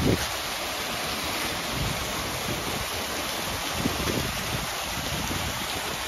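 Steady rushing of a mountain stream, with a few soft low thumps.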